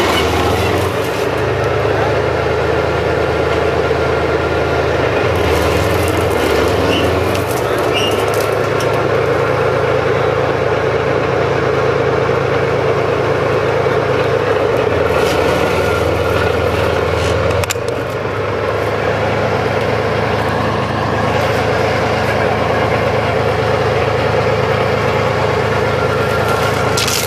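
A T-55 tank's V-12 diesel engine running loudly and continuously, its note shifting a few times as the tank moves forward on its tracks.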